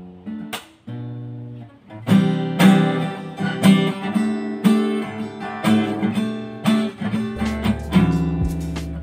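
Steel-string acoustic guitar strummed in chords: a few lighter strums for about the first two seconds, then fuller, louder strums about once a second.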